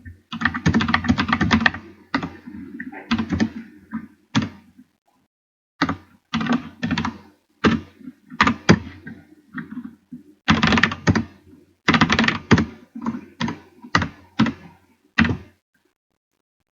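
Runs of rapid, irregular clicking and clattering, each run lasting from half a second to about two seconds, with short pauses between them.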